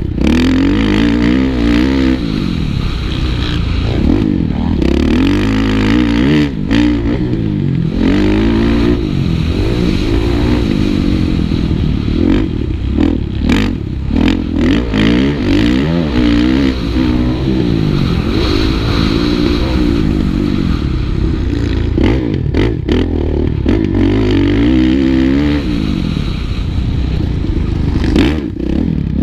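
Four-stroke Kawasaki KX450F motocross bike engine heard from the rider's helmet camera, its pitch climbing and dropping again and again as the throttle is opened and rolled off around the track. Wind rushes over the microphone, and the sound cuts out briefly a few times.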